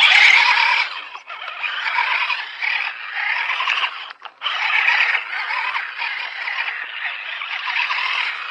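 Radio-controlled scale crawler truck with a Bronco body driving through mud and gravel: its electric motor and gears whine, rising and falling with the throttle, over the scrabble of the tyres. The sound cuts out briefly about a second in and again about four seconds in, as the throttle is let off.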